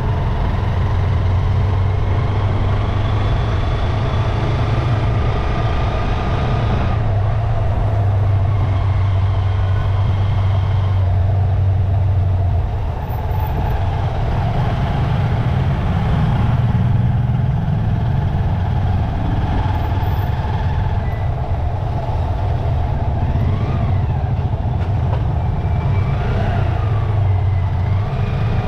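Steady drone of a motorcycle engine with road noise, heard from on board while riding in dense city traffic, other motorbikes and cars running close by.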